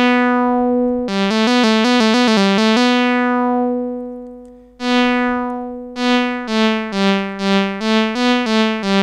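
LushOne modular analogue synthesizer playing notes whose volume is shaped by the Contour module's VCA and ADSR, with an LFO in once mode sweeping the filter at each note so the tone darkens as the note goes on. A fast trill between two notes about a second in, a long note that fades out, then a run of short notes, about three a second, each swelling and dying away.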